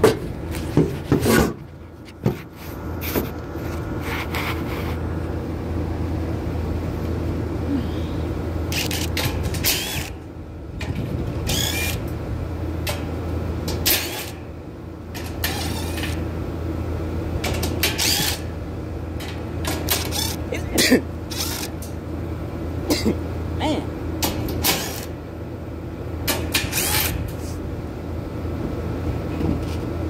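Top panel being taken off an outdoor AC condensing unit: irregular clicks, rattles and sheet-metal clatter from screws being backed out and the panel handled, over a steady low hum.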